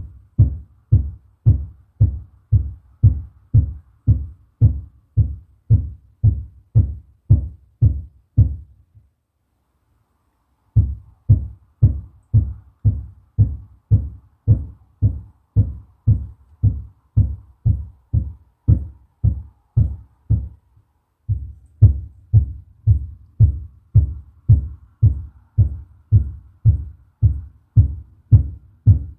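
Rapid, steady banging from the upstairs unit, heard through the ceiling as deep, muffled thumps about two and a half a second. The banging stops for nearly two seconds about nine seconds in, then carries on.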